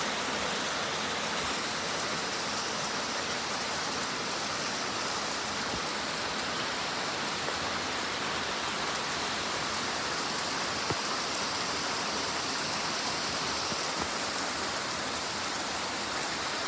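Heavy rain falling steadily, a dense even hiss of large drops with an occasional single drop tapping close by.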